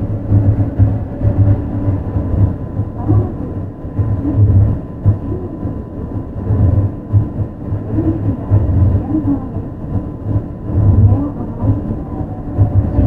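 Running sound inside a Yui Rail 1000-series (late-batch) monorail car with a Hitachi IGBT VVVF inverter drive: a heavy, pulsing low rumble from the rubber-tyred running gear, with a faint steady whine.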